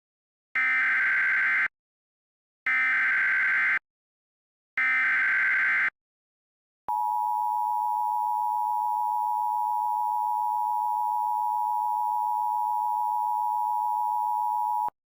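Emergency Alert System opening: three one-second bursts of data screech, the SAME header tones, followed by the steady attention tone lasting about eight seconds, which cuts off abruptly. Together they signal the start of an emergency alert broadcast.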